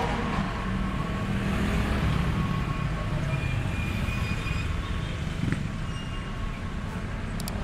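City road traffic: motor vehicle engines running close by over a steady low rumble, with one short tick about five and a half seconds in.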